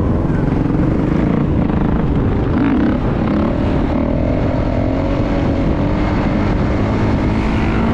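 Dirt bike engine running under a heavy low rumble, its pitch drifting slowly up and down as the throttle changes.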